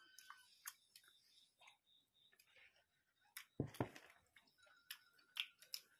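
Quiet eating by hand of rice and curry: scattered faint clicks and mouth smacks, with two louder knocks close together about three and a half seconds in.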